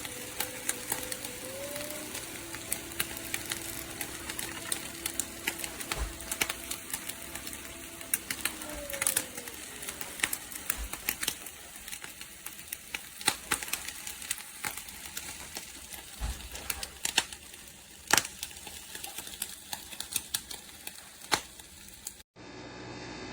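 Nespresso Vertuo Next capsule machine running a brew cycle: a steady motor whir that shifts in pitch and stops about nine seconds in, over continual crackling clicks. Near the end the sound cuts off abruptly to a steady hum.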